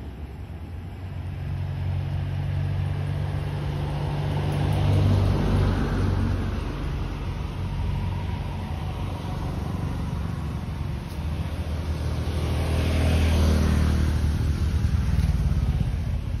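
Motor vehicle engines running with a steady low hum, swelling louder twice, about five seconds in and again near thirteen seconds, as vehicles pass.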